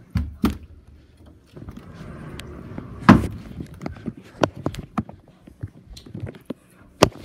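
Someone rummaging through a closet: scattered knocks and clicks, rustling, and one heavy thump about three seconds in.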